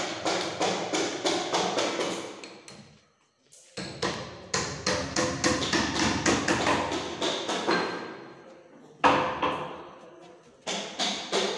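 Rapid, even knocking, about five strikes a second, with a ringing tone beneath. It comes in runs that each start suddenly and fade away, the loudest starting about nine seconds in.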